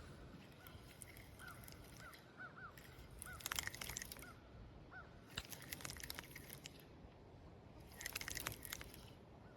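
Faint birds calling outdoors: a run of short chirps in the first half. Three brief bursts of sharp clicking come at about three and a half, five and a half and eight seconds in.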